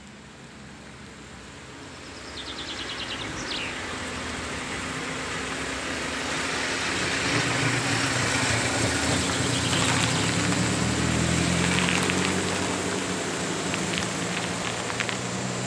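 Cars rolling slowly past at close range: engine and tyre noise build over the first few seconds and are loudest about halfway through, then an engine keeps running steadily at low revs.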